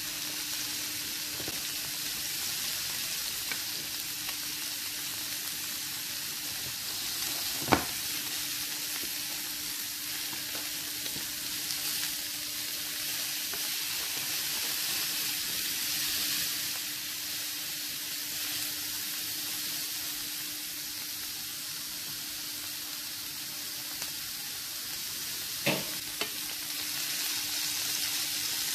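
Potato slices and broccoli sizzling in olive oil in a nonstick frying pan, a steady hiss as they are stirred with a silicone spatula. Two sharp knocks stand out, about eight seconds in and near the end, over a faint steady hum.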